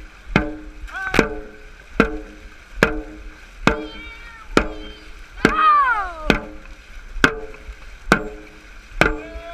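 Dragon boat drum struck in a steady beat, about one stroke every 0.85 seconds, each hit ringing briefly, setting the paddlers' stroke rate during a race. A long yell falling in pitch comes about halfway through.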